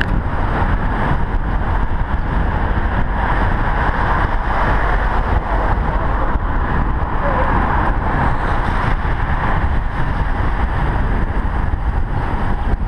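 Steady wind rushing over a helmet camera's microphone on a road bike riding at speed.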